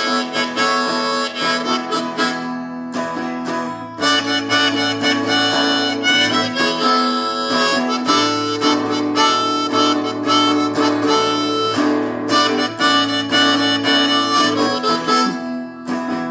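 Blues harmonica solo over guitar accompaniment: an instrumental break in a slow blues song, with held and bending harmonica notes.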